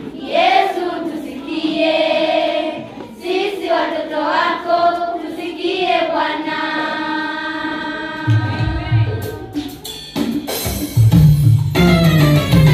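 Singing of long, held notes with no accompaniment, then a deep bass line comes in about eight seconds in and drum hits join about two seconds later as the band starts up.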